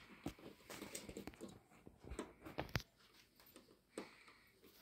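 Faint scattered clicks and light scraping of hands working the small metal controller fitting and hose joint on a brass LPG iron, unscrewing it by hand.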